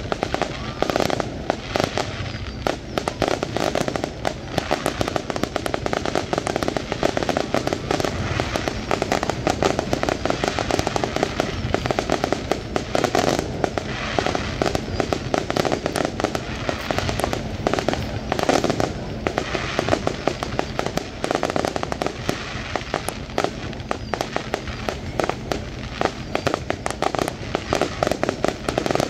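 Aerial fireworks shells bursting in quick, unbroken succession: a dense run of bangs and crackles, heavier about 13 and 19 seconds in.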